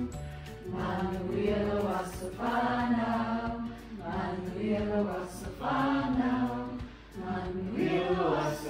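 A group of voices singing a birthday song together, unaccompanied, in phrases of held notes with short breaks between them.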